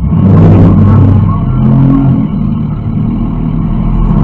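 Demolition derby car's engine revving hard under throttle, heard from inside the stripped-out cabin. It comes in suddenly and loud, with a rough, rattling edge, and sags a little about three seconds in.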